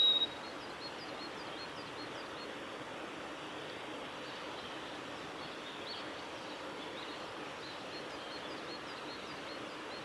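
A short, loud, high whistled note right at the start, the close of a male blue-and-white flycatcher's song phrase, then steady forest background with faint high chirps repeating evenly about three times a second.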